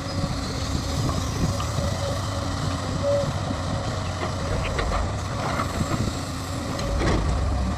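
Heavy diesel machinery running steadily at a work site, with a few faint knocks over the engine rumble.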